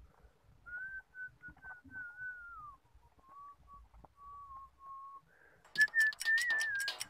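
A person whistling a wavering tune in short phrases. Near the end, a quick run of sharp clicks and clatter, the loudest part, comes in under the whistling.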